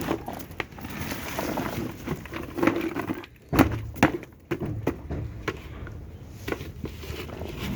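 Chopped potatoes being tipped into a bucket of wet bran-and-grain mash: irregular soft thuds and rustling, with two sharper knocks around the middle.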